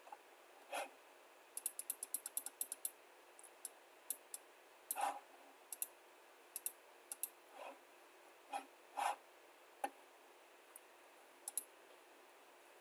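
Scattered computer mouse clicks, with a quick run of about a dozen clicks about two seconds in.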